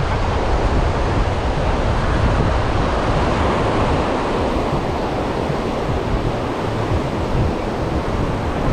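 Ocean surf washing steadily on a sandy beach, with wind buffeting the microphone.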